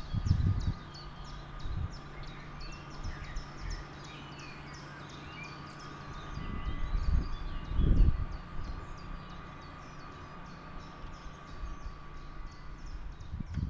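Forest ambience of birds calling, with quick short high calls repeating steadily and scattered chirps over a faint steady hum. Low rumbles come briefly near the start and again about eight seconds in.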